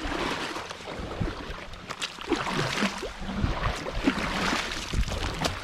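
Kayak being paddled through a lily-pad pond: water splashing and sloshing with the paddle strokes, with scattered light knocks.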